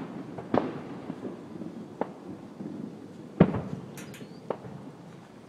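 Aerial fireworks bursting: a string of separate bangs, each trailing off in a rumble, the loudest about three and a half seconds in, with a short crackle just after it.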